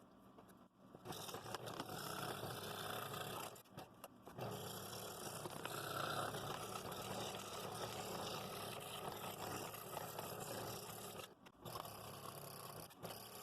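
Scroll saw with a number 3 blade cutting thin wood: a steady cutting noise that starts about a second in and drops out briefly twice.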